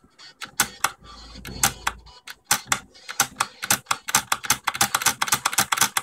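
Princess 300 manual typewriter being typed on: sharp clacks of the typebars striking, a few spaced strokes at first, then a fast run of several a second through the second half.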